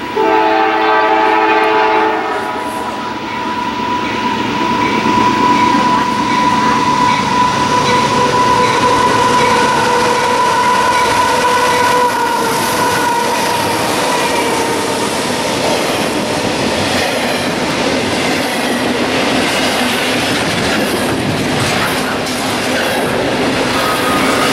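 A CSX freight train passing close: its horn sounds a chord for about two seconds, then the locomotives and double-stack container cars roll by with steady wheel and rail noise and some clatter.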